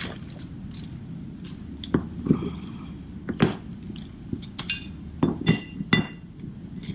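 Small metal parts, loose bolts and nuts, clinking as they are handled: a string of irregular sharp clinks, some with a short bright ring.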